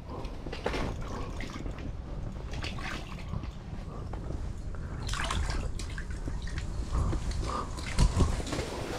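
Water splashing and dripping in a hole in the ice as a burbot is pulled out by hand, with a couple of knocks near the end.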